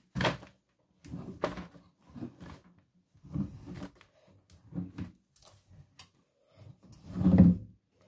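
Freshly spun wet laundry being pulled by hand out of a front-loading washing machine drum: fabric rustling and dragging against the drum and rubber door seal in irregular bursts about once a second, with the loudest handling sound about seven seconds in.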